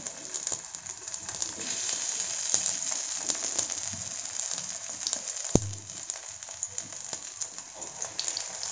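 Rolled dough pinwheels shallow-frying in a little hot oil in a small nonstick pan, sizzling and crackling as pieces are laid in one at a time. A single sharp tap about five and a half seconds in.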